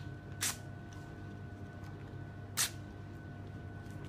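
A sticker packet's wrapper is torn open by hand: two short crinkling rips about two seconds apart, over a faint steady hum.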